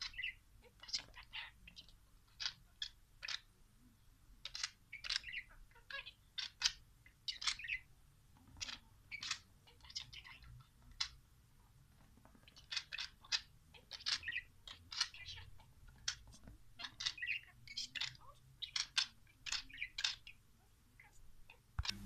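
Budgerigar chattering: a long string of short, high chirps and squeaky calls, some in quick runs, with brief pauses between.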